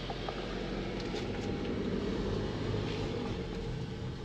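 Steady car noise heard from inside the cabin as the car runs at low speed, engine and road noise with no distinct events.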